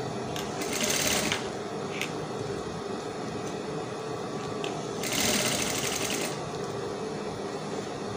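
Industrial sewing machine stitching a gathered seam in two short runs, one about a second in and another around five seconds in, with a steady hum between them.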